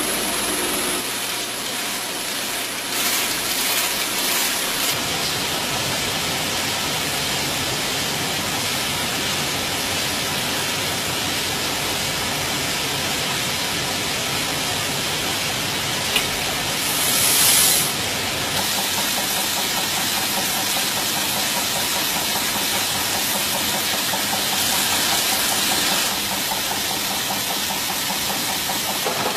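Coin-mint production machinery running: conveyors carrying coins and coining presses make a steady, dense mechanical hiss and clatter, with a few brief louder surges.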